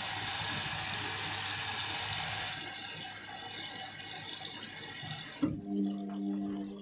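Indesit washing machine taking in water, a steady rush of water entering the drum that cuts off suddenly about five and a half seconds in as the fill stops, leaving a steady low hum.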